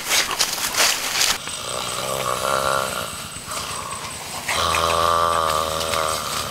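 Brushy crackling of footsteps through leaves and undergrowth for the first second or so. Then a man's voice gives two long, wavering, wordless cries, the second louder.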